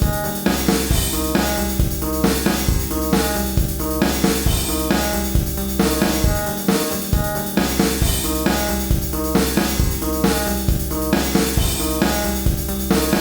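Post-punk-style rock music: a steady drum-kit beat with bass drum and snare, over sustained pitched instrument tones.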